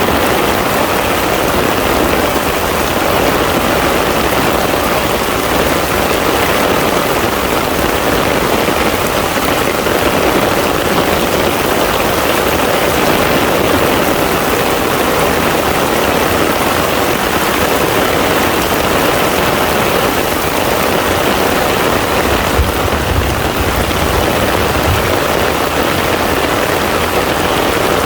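Heavy rain falling steadily on a pond's surface, a dense even patter of drops on water.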